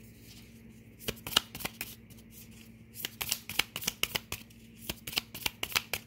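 A deck of cards being shuffled by hand: a short burst of quick card flicks about a second in, then a longer run of rapid flicks from about three seconds on.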